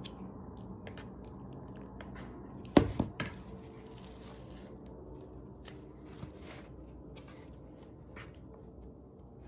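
Eating sounds: scattered soft clicks and squishy, wet noises over a steady low hum, with one sharp knock about three seconds in, followed by a smaller one.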